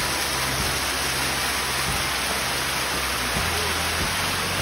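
Small waterfall cascading down stepped rock ledges close by, a steady rushing splash of falling water.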